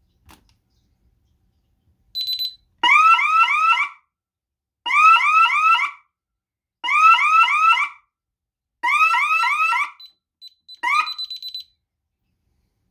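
DSC alarm system sounding a fire alarm through its siren: four loud one-second bursts of a quickly sweeping electronic tone, about a second apart. A single keypad beep comes just before, and near the end a few short keypad beeps and a last brief blip, after which the siren stops.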